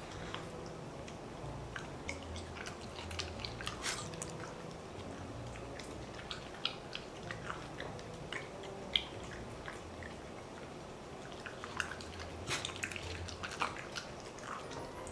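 Shiba Inu eating chunks of meat off plates: wet licking, chewing and lip-smacking, a scatter of short, irregular clicks in clusters.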